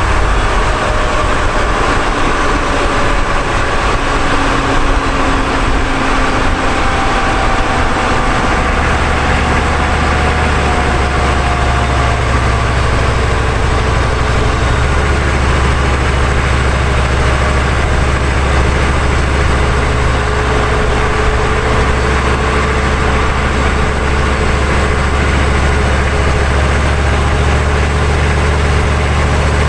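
Underbody noise of a 1999 GMC 3500 pickup driving at road speed: a steady rush of tyres on asphalt over a deep low drone that grows stronger about nine seconds in and again about fifteen seconds in.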